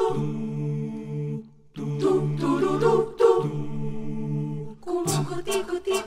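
Mixed male and female voices singing a cappella in harmony: held low chords under a moving melody, with a brief pause about a second and a half in.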